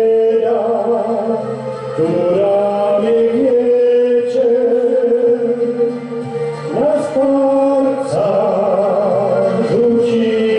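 A man singing into a handheld microphone over instrumental accompaniment, holding long notes with vibrato.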